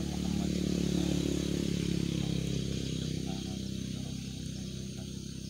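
An engine running steadily at an even pitch nearby, growing louder about a second in and then slowly fading.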